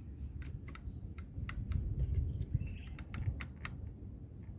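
Irregular light clicks and taps from hands working an electric chainsaw's chain and guide bar while tightening the chain, over a steady low rumble.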